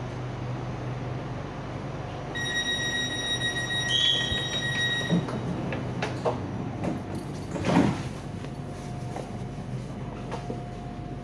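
SRT Red Line electric train standing at the platform with a steady low hum; its door-closing warning tone sounds as a steady beep for about three seconds, followed by a few clicks and a short loud thud about seven and a half seconds in as the sliding doors shut.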